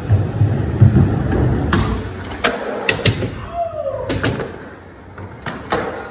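Skateboard wheels rolling with a low rumble that fades out about halfway, while the board gives a series of sharp clacks and knocks against the ground.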